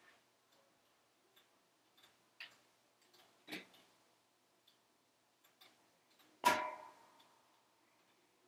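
Wood fire crackling in a wood-burning stove: sparse faint pops, a louder one about three and a half seconds in, and a sharp crack about six and a half seconds in that rings briefly.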